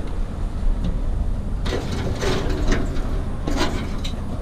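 Scrap metal being handled and dragged, with scraping and clattering twice in the middle, over a low steady rumble.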